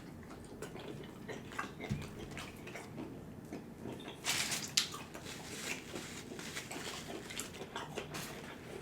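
Wet eating sounds from a saucy seafood boil: chewing and smacking with many small clicks, and a louder wet burst about four seconds in.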